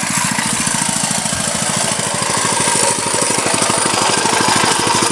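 178cc single-cylinder pressure-washer engine on a homemade stand-up scooter running hard at high revs, a loud, rapid, even firing beat.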